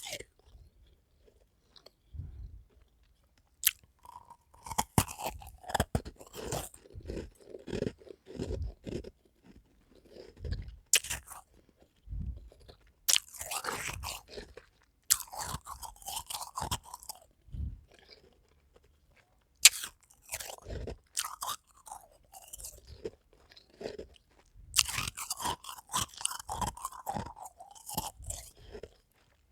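A person biting into and chewing powdery, frosted half-moon ice cubes. Sharp cracks come as the ice is bitten, followed by bursts of crunching as it is chewed, with short pauses between mouthfuls.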